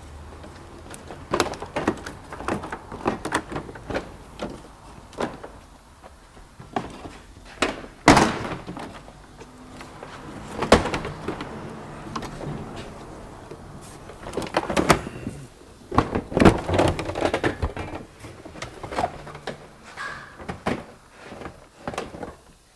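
Chrysler 200's plastic front bumper cover being worked loose and pulled off the car: a long irregular string of sharp clicks, pops and knocks, loudest about eight seconds in and again around sixteen to seventeen seconds.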